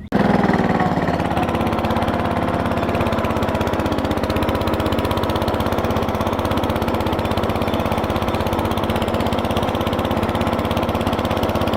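Small riding-mower tractor engine running steadily through a makeshift soda-can exhaust, a loud, even putter starting abruptly at the beginning.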